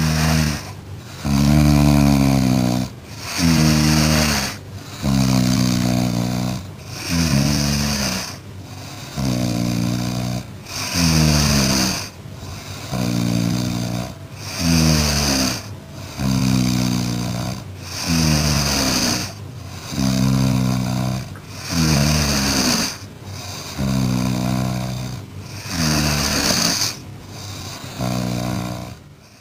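An elderly cat snoring loudly in deep sleep: a rough, rattling snore on each breath, repeating evenly about every two seconds.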